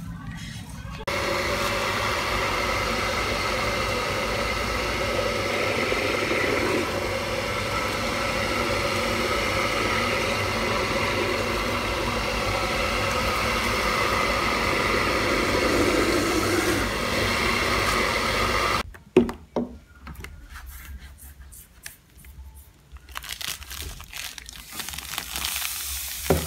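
Electric mill grinding rice with water and coconut milk into a wet batter, its motor running with a steady hum. It stops suddenly about 19 seconds in, leaving quieter clinks and rustling.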